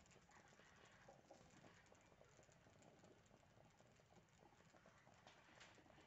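Near silence with a faint, dense crackling patter and a brief slightly louder rustle near the end.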